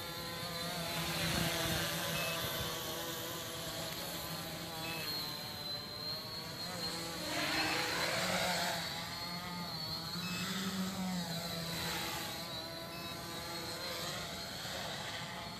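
Tricopter's electric motors and propellers whining in flight, the pitch rising and falling as the throttle changes.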